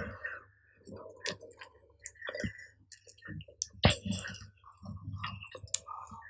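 Close-up eating and food-handling sounds: irregular mouth clicks and small smacks, with a sharper click about four seconds in.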